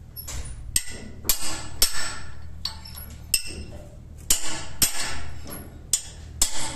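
Steel spanners clinking and knocking against nuts and the casing of a marine turbocharger's bearing housing as it is assembled: about a dozen irregular sharp metallic strikes. A steady low hum runs underneath.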